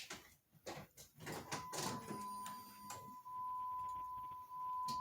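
A few light clicks, then a vehicle's electronic warning tone comes on about a second and a half in and holds as one steady high beep.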